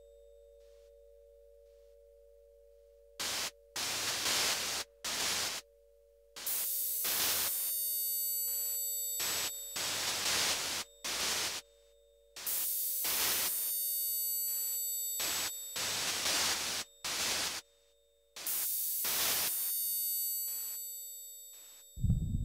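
Harsh electronic noise music. A faint steady two-note drone gives way, about three seconds in, to blasts of static with high whistling tones in them, cut abruptly on and off at irregular lengths. The last blast fades out slowly, and a low throbbing pulse begins right at the end.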